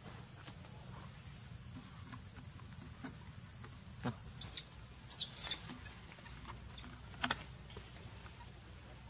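Outdoor ambience with a faint steady high hum, broken in the middle by a few short, sharp, high-pitched chirping calls that fall in pitch, two of them close together, and a couple of clicks.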